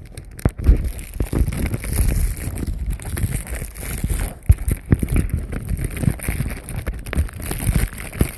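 Irregular low thumps and rumble of footsteps and phone handling as the person filming walks, with some wind on the microphone.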